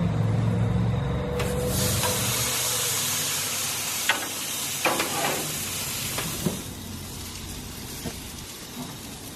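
Marinated top sirloin steak sizzling as it cooks: a steady hiss that starts about a second and a half in and slowly fades, with a few light clicks and taps. A low hum runs under the first couple of seconds.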